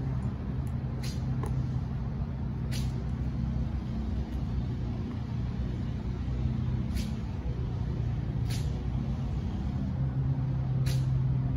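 A small engine idles steadily with a low hum, broken by a few sharp, high clicks.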